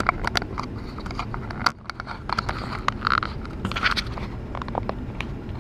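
Isuzu Trooper's engine running at a low, steady rumble, heard from inside the cabin as it creeps over rough ground, with many scattered sharp clicks and knocks.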